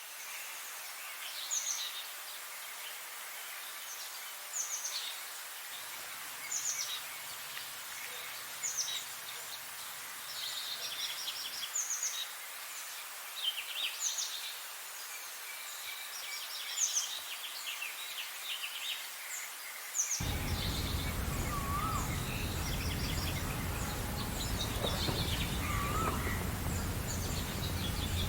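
Several birds singing and chirping in short repeated high phrases over a steady background hiss. About 20 seconds in, the background abruptly becomes louder with a low rumble, and lower whistled, gliding calls join in.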